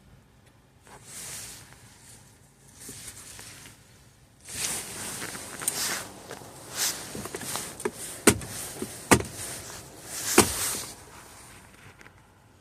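Rustling and handling noises with several sharp clicks and knocks in the second half, as of a person moving about in a car's interior.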